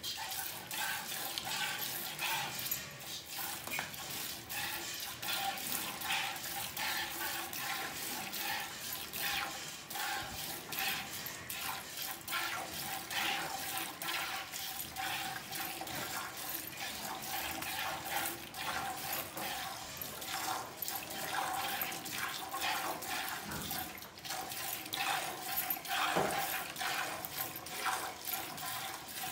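Cow being milked by hand: streams of milk squirting into a steel pail partly full of milk, one after another in a steady rhythm. One louder, falling sound stands out near the end.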